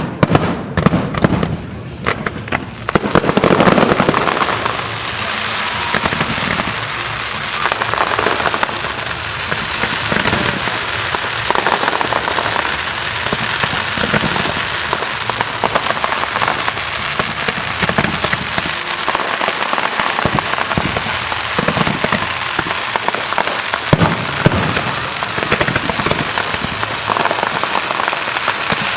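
Fireworks display: a few loud bursts in the first seconds, then a dense, continuous crackling of many small explosions.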